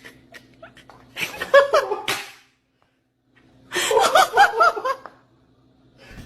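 Two bursts of laughter, each about a second long, made of quick repeated rising-and-falling syllables, with a sudden silence between them.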